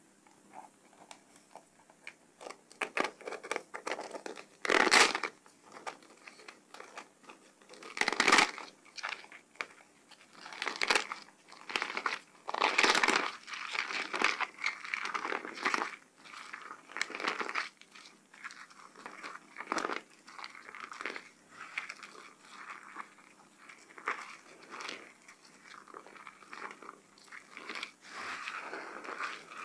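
Whipped soap foam squeezed and kneaded in bare hands: a run of irregular wet crackling and squishing. Several squeezes stand out louder, the strongest about five and eight seconds in.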